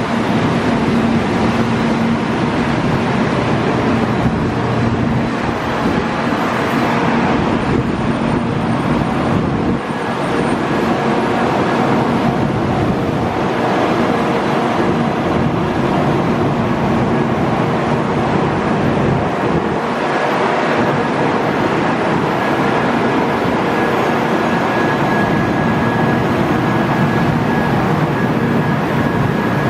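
Retired 700 series Shinkansen train set moving slowly over a level crossing, a steady rolling noise with a few steady tones in it.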